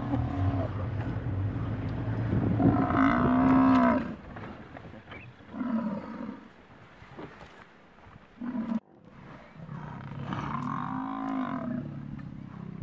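Cape buffalo bellowing in distress, a series of drawn-out calls, the first the loudest, while lions hold it down and bite it.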